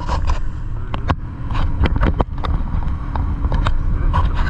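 BMW R1150GS Adventure's boxer-twin engine running under a steady low rumble, with irregular clicks and knocks scattered throughout.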